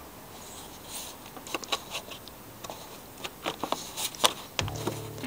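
Sharp clicks and light plastic rattles from hands unfastening the clips on a BMW E46's plastic air-filter housing. A low steady hum starts near the end.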